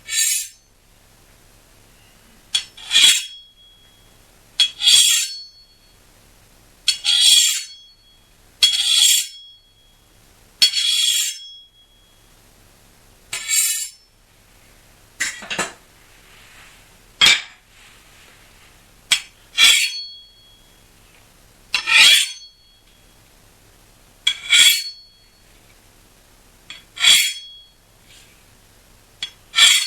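Steel kitchen knife blades clashing, pitch-shifted to sound like sword blades: about fourteen short metallic hits, each with a bright ring that fades within a second, spaced roughly two seconds apart. Some hits begin with a small click just before the ring.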